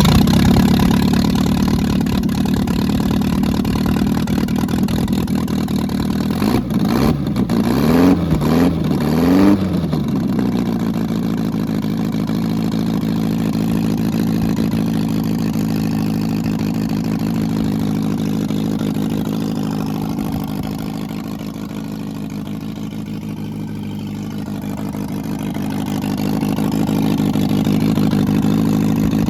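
Freshly rebuilt MGB 1800 18V four-cylinder engine running with no muffler, loud and unsilenced. About seven seconds in it is revved three times in quick succession, then it settles back to a steady idle. The ignition timing is about 3 degrees off, which the builder says keeps it from running quite as smoothly as it could.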